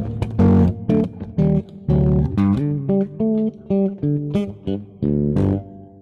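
Closing music: a bass guitar played solo, picking out short, detached chord-like notes with gaps between them, the last one dying away at the end.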